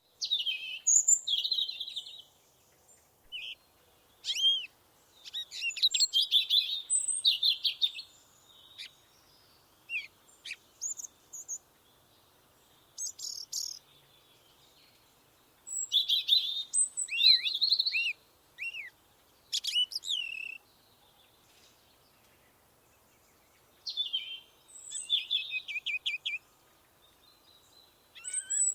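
Several songbirds singing in the woods: phrases of chirps, trills and falling whistled notes come in bursts, with quiet gaps in between.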